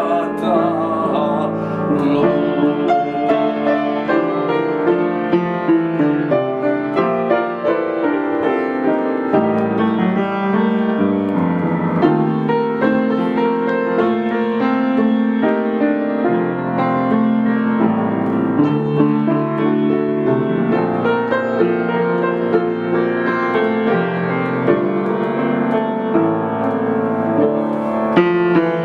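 Upright piano played solo, many notes and chords in continuous succession. A singing voice holds a note with vibrato that fades out in the first second.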